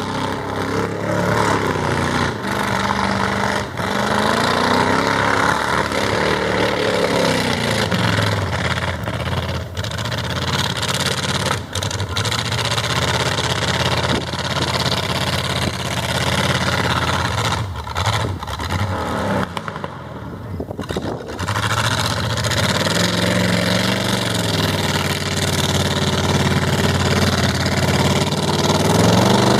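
Mud truck's engine revving hard and unevenly as its tyres churn through a deep mud hole, the pitch rising and falling again and again. It backs off briefly about two-thirds of the way through, then climbs again near the end.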